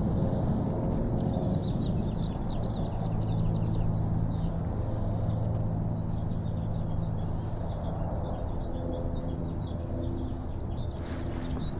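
Small birds chirping over a steady low outdoor rumble with a hum. The chirps come thickest in the first few seconds and again near the end.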